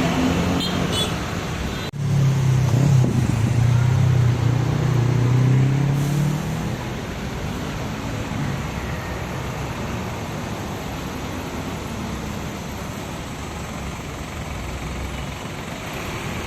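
Bus engine passing close, loud for about four seconds and shifting slightly in pitch, then fading into steady road traffic noise.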